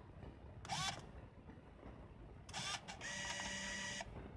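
Canon Autoboy Epo 35 mm compact film camera's built-in motors working: a brief whir about a second in, another brief whir a couple of seconds later, then about a second of steady motor whine that stops sharply, typical of the shutter firing and the motor winding on the film.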